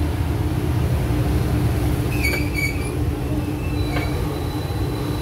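Cabin noise from inside a city bus: a steady low engine-and-road rumble with a constant droning hum. Two brief high squeaks come about two seconds in.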